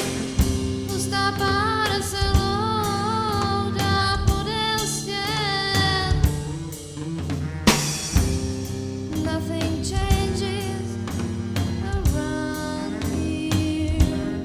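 Band music: a drum kit keeps a steady beat under a guitar backing, with a wavering lead melody line over the first few seconds.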